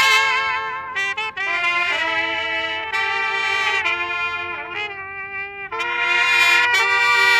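Several trumpets playing a slow melody together in harmony, long held notes with vibrato, the chords changing every second or so.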